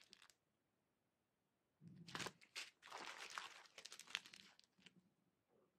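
Faint crinkling of small clear plastic sachets of diamond-painting drills as they are handled, in a few short rustles starting about two seconds in.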